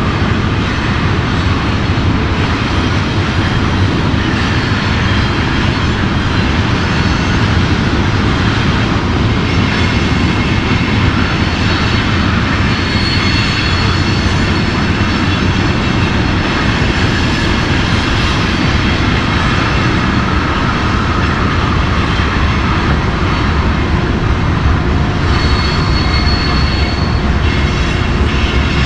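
Steady loud whirring of a multirotor drone's motors and propellers, with faint thin high whining tones that drift in pitch.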